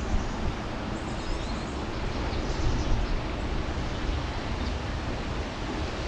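Carrier central air-conditioner condenser unit running steadily, its fan and compressor going on a newly fitted run capacitor: the unit starts and runs again.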